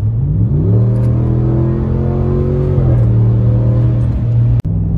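Ram 1500's 5.7-litre Hemi V8, heard from inside the cab, revving up sharply as the automatic transmission kicks down under a full-throttle stomp, then holding a steady high-rpm note while the truck accelerates hard. The pitch eases down a little about three seconds in, and the sound cuts off abruptly shortly before the end.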